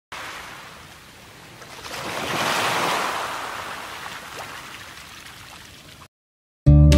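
Ocean surf washing over rocks: one wave swells to its loudest about two and a half seconds in, then recedes, and the sound cuts off suddenly about six seconds in. Strummed acoustic guitar music starts just before the end.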